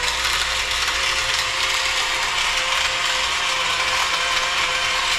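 Blender running steadily, blending a fruit smoothie: a loud, even whir with a steady motor tone underneath.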